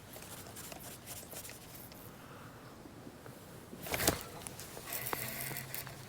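Handling noises from fishing gear: scattered light clicks and rustling, with one sharp knock about four seconds in.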